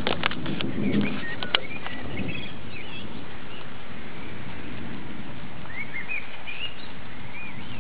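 Steady rain hissing, with a bird chirping in short bending calls about two seconds in and again near the end. A low thunder rumble fades out in the first second, with a few sharp clicks.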